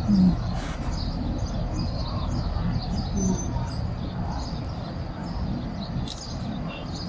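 Steady low rumble of a moving vehicle, with faint short high chirps recurring over it.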